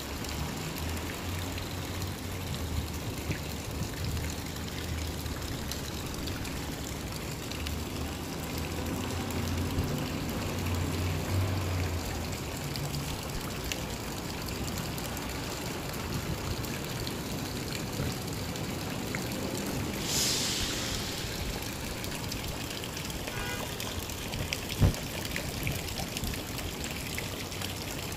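Fountain water running and trickling steadily, an even splashing wash. A low hum sits under it for the first half, and a single sharp knock stands out near the end.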